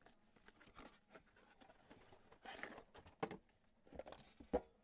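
Faint crinkling and rustling of shrink-wrap plastic being pulled off an Upper Deck The Cup metal card tin, with a few light taps and clicks from the tin near the end.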